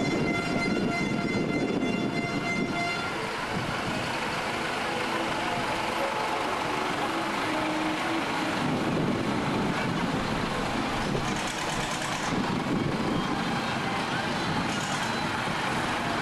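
Tractor engine running as it pulls a parade float past, with a steady high-pitched tone like a horn sounding over it for the first three seconds or so.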